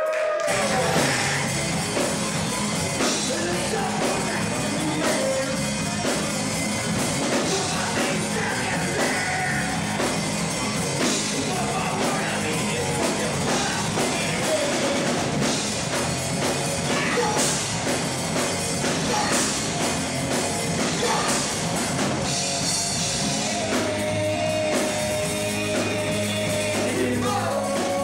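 Live rock band playing, with drums, electric guitar and a singing voice.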